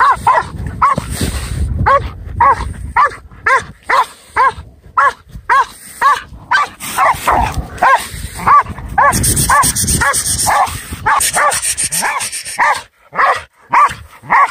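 Decoy dog barking excitedly at a cornered badger, a steady run of short, high yapping barks, about two to three a second.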